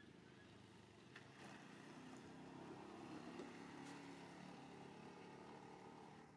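Near silence: a faint low hum with a few soft clicks.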